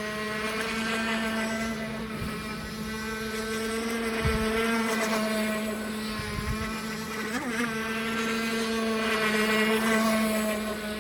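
Pro Boat Recoil 2 RC boat's brushless electric motor and propeller whining steadily as it runs across the water, the sound swelling and easing a little as it moves. It is running slower than before, which the owner suspects may be a drained battery.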